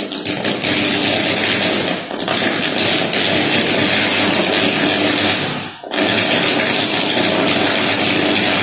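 Electrical arcing from a burning pole-mounted transformer or its cables: a loud, steady buzzing hiss that dips about two seconds in and briefly drops out shortly before six seconds, then comes back.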